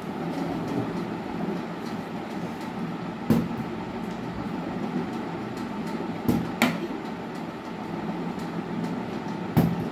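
Plastic bottle being flipped and landing on a cloth-covered table: sharp knocks about three seconds in, twice in quick succession a little past six seconds, and once near the end, over steady background noise.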